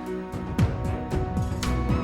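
Background music with a steady beat and low bass hits.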